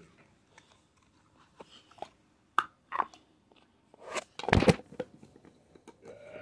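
Plastic slime tubs and lids being handled: a few sharp clicks and crackles, then a louder rubbing thump about four and a half seconds in.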